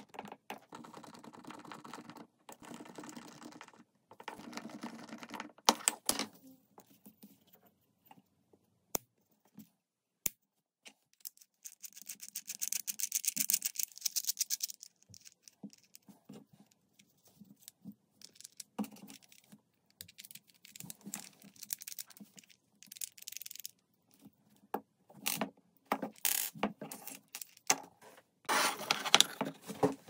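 Small wooden parts being handled and fitted together: scattered clicks, taps and light clatter, broken by several short bursts of hissing noise, the longest rising in loudness about halfway through.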